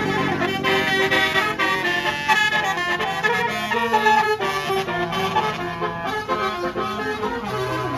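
A bus's basuri multi-tone air horn (telolet horn) playing a melody, stepping quickly from note to note with several reedy tones sounding together.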